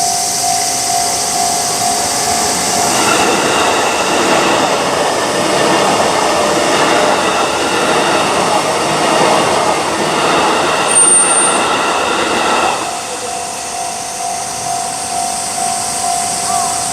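Electronic level-crossing alarm sounding a rapidly pulsing tone. An electric commuter train passes from about three seconds in and drowns it with rumbling wheel noise and motor whine, plus a brief wheel squeak. Once the train has gone, about thirteen seconds in, the alarm is heard alone again.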